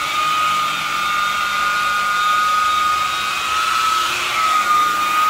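DeWalt variable-speed rotary buffer running steadily with a white foam pad, polishing rubbing compound on a freshly painted motorcycle gas tank: a steady high whine over an even hiss.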